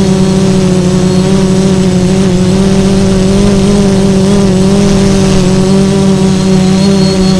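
Multirotor FPV drone's electric motors and propellers droning loudly and steadily, heard from the craft's own onboard camera, the pitch wavering slightly.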